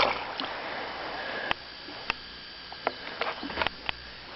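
A few scattered light clicks and taps, about half a dozen, over a faint steady hiss.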